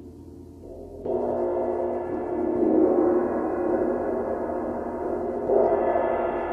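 A 28-inch Paiste Symphonic gong and two vintage Sonor cymbals struck with felt mallets and ringing together. A stroke about a second in makes the ringing much louder, and a second stroke at about five and a half seconds swells it again.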